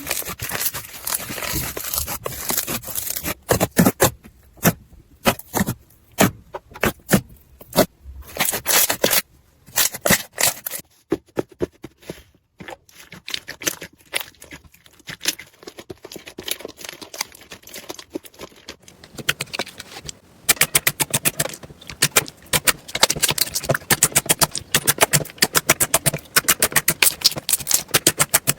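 Slime being squeezed, pressed and stretched by hand, crackling with many sharp pops as air pockets burst, growing faster and denser in the last third.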